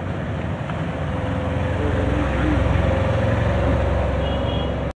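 Road traffic noise: a steady rumble of vehicles, with a low engine rumble growing louder about two seconds in.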